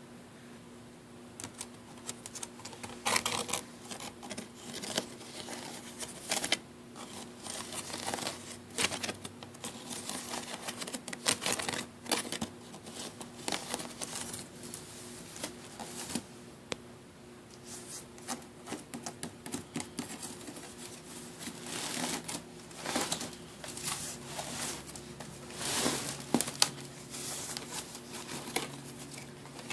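Fingernails scratching and tapping on a wicker picnic basket: close, irregular crackly scratches and clicks starting about a second and a half in, over a faint steady hum.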